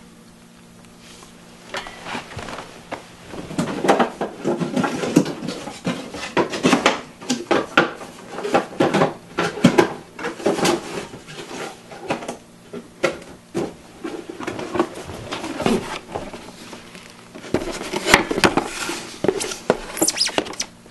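Handling noise as a camcorder and its cardboard box are moved about and set down on a wooden table: a busy run of clicks, knocks and rustles that starts about two seconds in, with a short lull near the end.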